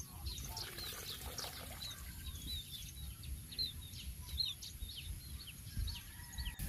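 Small birds chirping in quick, repeated short calls, over a low rumble and a faint steady high whine.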